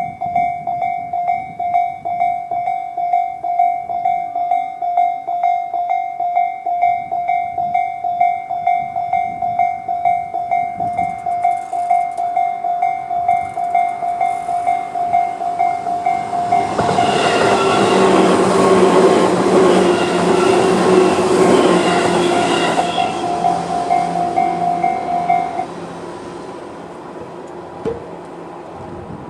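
Japanese railway level crossing's electronic alarm (Tobu 'sound C') ringing in a rapid, evenly pulsing tone. A Tobu 10000-series electric train passes through with a loud rush and hum from about 17 to 23 seconds in. The alarm cuts off about 25 seconds in.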